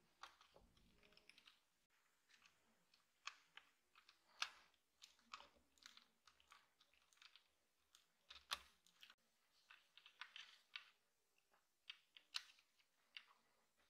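Faint, irregular clicks and scrapes of a small screwdriver working screws in the plastic base of a toy model car, along with fingers handling the plastic parts.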